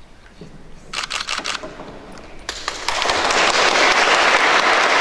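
Congregation applauding: a few scattered claps about a second in, then the whole crowd joins in near the three-second mark and claps steadily.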